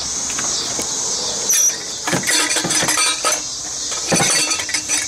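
Metal clinking and knocking in quick, irregular clusters, starting about a second and a half in, as hand tools work the exhaust Y-pipe and its fasteners loose.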